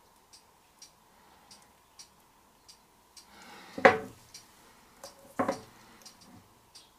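Two sharp knocks about a second and a half apart, the first after a short scrape, as a round wooden board wet with acrylic pour paint is handled and set down by hand. Faint regular ticking, a little under two ticks a second, runs underneath.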